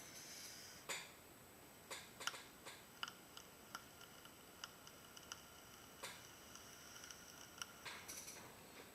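Near silence with scattered faint clicks and taps at irregular intervals.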